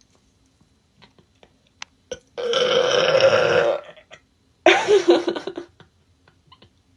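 A woman burping twice: a long, steady burp of about a second and a half, then about a second later a shorter burp whose pitch wavers.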